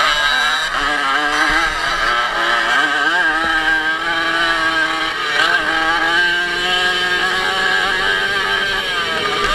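Racing moped's small two-stroke engine running hard, its pitch rising and falling as the rider opens and closes the throttle and changes gear, heard from the rider's helmet with wind rushing over the microphone.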